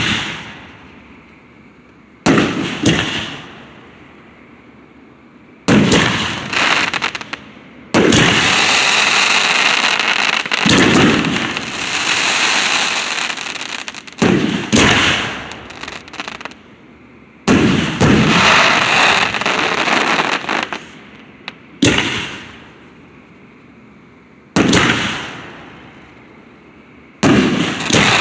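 Aerial firework shells bursting overhead: a sharp boom every few seconds, each dying away quickly. From about 8 to 13 seconds, and again around 17 to 20 seconds, a long run of rapid crackling fills the gaps.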